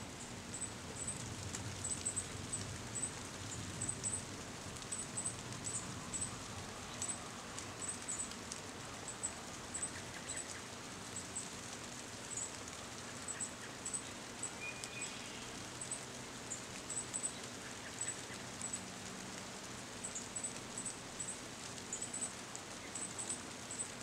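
Light rain falling on tree leaves: a steady hiss with frequent small, high ticks of drops, and leaves rustling in the breeze. A bird chirps faintly once about halfway through.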